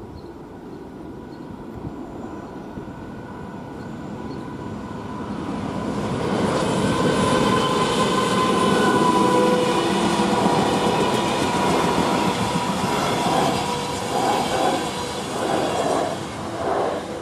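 A train approaching and passing close by: a growing rumble that is loud from about six seconds in, with steady high squealing tones from the wheels on the rails. Near the end come uneven clattering pulses as the car-transporter wagons' wheels run over the track.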